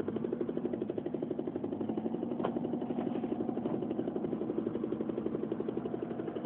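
Four-wheel-drive vehicle's engine running, heard from inside the cabin as a steady, fast, even pulsing throb. A faint click comes about two and a half seconds in.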